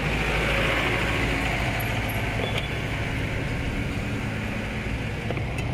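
Steady motor-vehicle noise, an even hiss over a low rumble, easing slightly toward the end.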